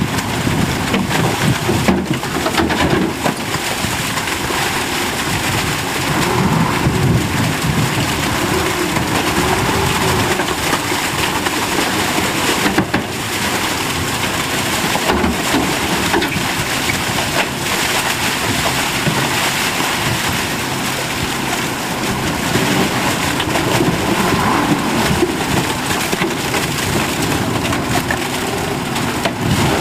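Dump truck running as its bed tips to unload, with wet mud and rubble spilling from the tailgate: a loud, steady, noisy rumble.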